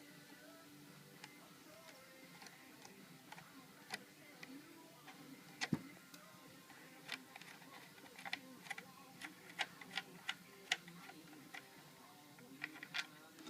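Scattered small clicks and ticks of a flathead screwdriver and metal parts being worked to remove the barrel band screw and nut from a Ruger 10/22 stock, with one louder knock about six seconds in.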